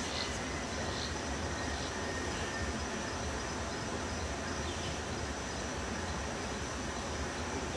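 Outdoor woodland ambience: a steady hiss and low rumble with a faint, steady high insect drone and a few faint short chirps.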